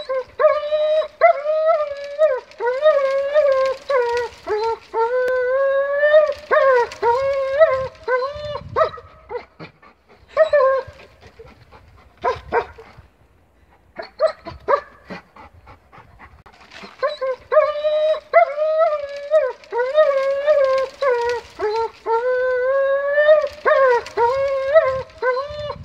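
German Shepherd whining and howling in long, wavering, high-pitched stretches, like a grumbling complaint. In the middle, the long stretch breaks up into short yips with a brief pause, then the long wavering whine resumes.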